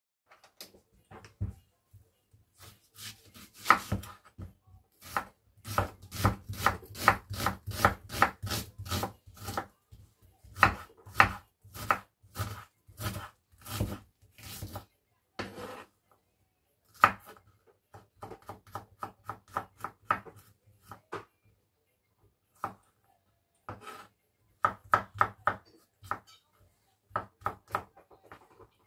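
Kitchen knife chopping an onion on a wooden cutting board: sharp knocks of the blade on the board, about three a second in runs, with a couple of short breaks past the middle.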